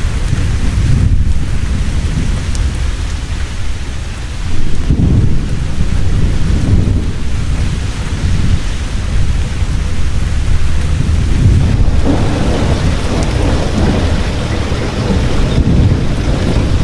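Heavy rain pouring steadily, with thunder rumbling low underneath; the rumble swells about four and a half seconds in and again about twelve seconds in.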